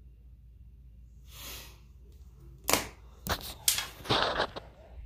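Phone handling noise: a brief soft rustle, then a run of sharp, irregular knocks and clicks as the recording phone is picked up and moved around.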